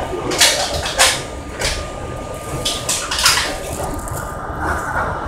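R32 subway car running on an elevated line: a steady low rumble, with a series of short hissing bursts over the first three and a half seconds.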